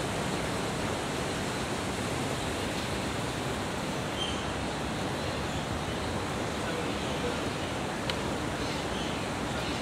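Steady, even rushing background noise, with a faint click about eight seconds in.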